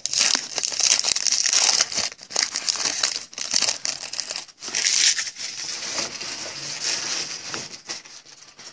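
Foil wrapper of a 2016 Panini Diamond Kings baseball card pack being torn open and crinkled, a dense crackling full of small clicks that dies down near the end.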